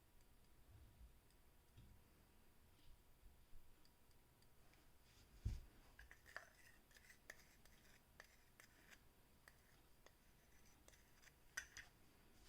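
Faint, scattered small clicks and light scraping of hand tools being handled on a workbench, with a soft knock about five and a half seconds in.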